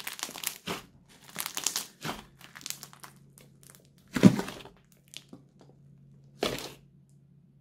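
Crunchy slime squeezed and kneaded by hand, crackling and crinkling in short bursts. The loudest crackle comes a little after four seconds in, and another near the end.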